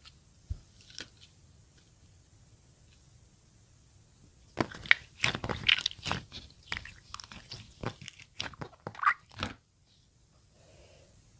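Close, crisp crunching and crackling, a dense run of sharp clicks lasting about five seconds that starts a few seconds in, after a few faint clicks.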